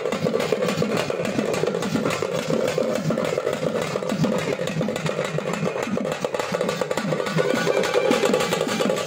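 Thappattam drumming: a troupe of parai (thappu) frame drums beaten with sticks in a fast, dense, unbroken rhythm, loud throughout.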